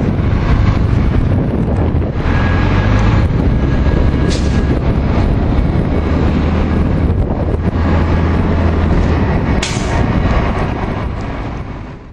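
Diesel transit bus engine running steadily with a low rumble, wind buffeting the microphone; the sound fades out just before the end.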